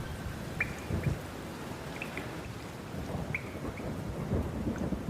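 Rain with thunder: an uneven low rumble under a light, even hiss, with scattered small ticks like drops.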